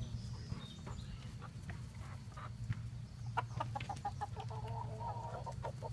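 Chickens clucking. Scattered short clucks at first, then a quicker run of short clucks from about halfway through.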